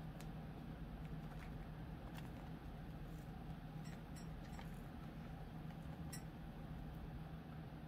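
Thin 22-gauge craft wire being handled and twisted by hand on a metal hoop, giving a few faint, scattered clicks and ticks as the strands touch each other and the hoop, over a steady low hum.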